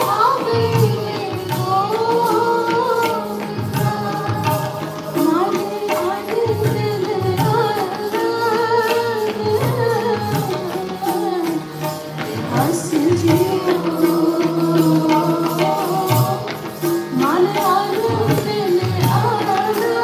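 Sikh kirtan: female voices singing a devotional hymn, accompanied by harmonium and tabla playing a steady rhythm.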